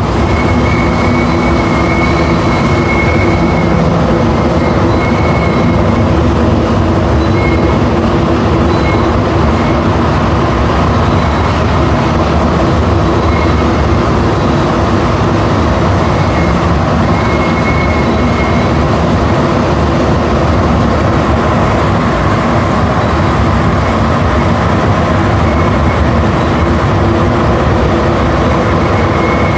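Interior of an AZUR metro car (MPM-10) running: a steady rumble and hiss from the moving train, with a thin, high whistle that comes and goes in short spells every few seconds. The uploader assumes the whistle comes from the ventilation vents.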